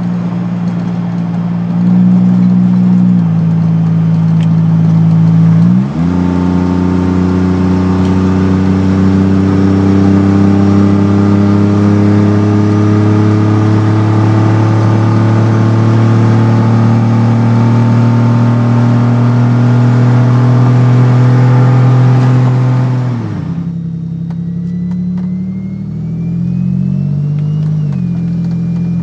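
The engine of a heavy turbocharged SUV pulling hard under full acceleration, heard from inside the cabin. About six seconds in the engine note jumps up suddenly, then climbs slowly and steadily for about seventeen seconds before the throttle is let off and it falls back to a lower, quieter note. A faint high whistle glides upward near the end.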